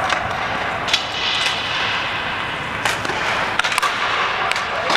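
Ball hockey play: a string of about eight sharp knocks and cracks at irregular intervals, from sticks and the ball striking, over steady background noise.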